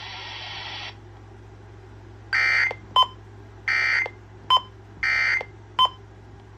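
EAS digital end-of-message data bursts: three identical short, buzzy warbling blasts of SAME data about 1.3 seconds apart, each followed by a brief click, after about a second of radio hiss. They close the relayed severe thunderstorm warning.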